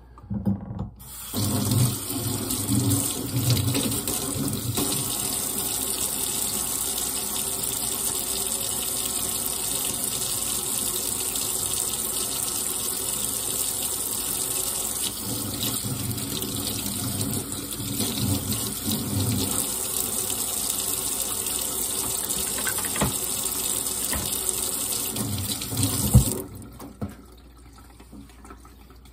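Kitchen tap running, its stream pouring over a kitchen knife blade and into a stainless steel sink as the knife is rinsed. The water comes on about a second in, runs steadily, and stops sharply near the end with a brief knock.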